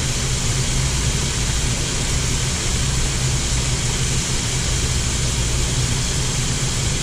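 Shrimp frying in an electric deep fryer's hot oil, a steady sizzling hiss, over a low steady hum.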